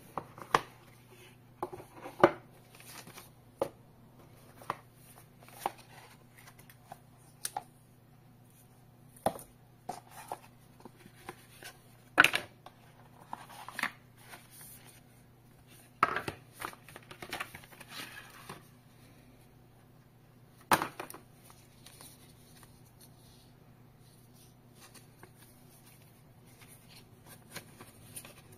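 A cardboard smartphone box being slid open and its card inserts, paper leaflets and cable handled: irregular taps, knocks and scrapes of card and rustles of paper, with a few louder knocks spread through the first two-thirds and smaller handling sounds after that.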